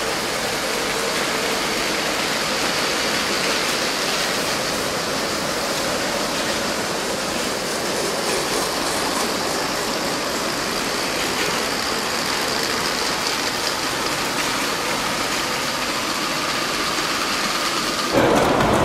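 LEGO train hauling a long string of loaded flatcars over plastic LEGO track: a steady clatter and hiss of many plastic wheels rolling, with a faint high motor whine. It cuts off just before the end.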